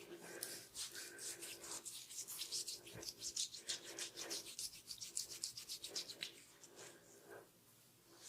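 Hands briskly rubbing hair and scalp in a head massage, quick rubbing strokes about three or four a second that thin out and grow quieter near the end.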